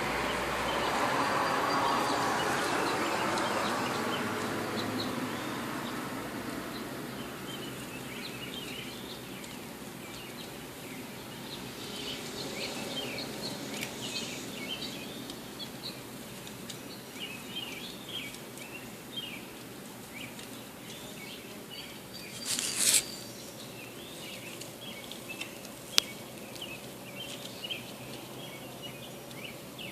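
Outdoor ambience: a broad rushing noise swells and fades over the first several seconds, then many short high chirps of small birds go on, broken by a brief loud burst of noise a little over 20 seconds in and a sharp click soon after.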